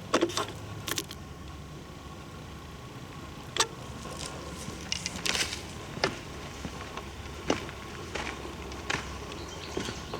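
Handling noise from a camera carried by hand while walking: irregular sharp clicks and knocks, several a few seconds apart, over a steady low hum.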